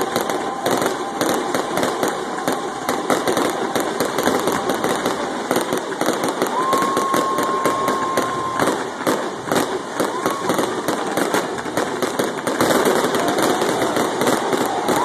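Aerial fireworks display going off in quick succession, a dense run of bangs and crackling with no let-up. About seven seconds in, a steady high whistle holds for a couple of seconds.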